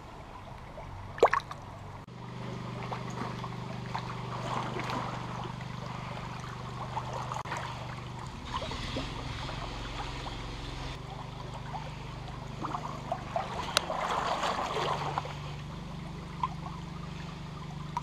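Shallow river water trickling and gurgling close by. There are two sharp knocks, one about a second in and one near fourteen seconds, with brief splashing and crackle around the second as a hand returns a small brown trout to the water.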